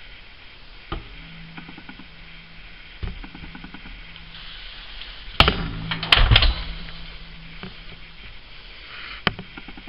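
Scattered sharp knocks and clicks, the loudest cluster about five and a half to six and a half seconds in, over a faint low hum that comes and goes.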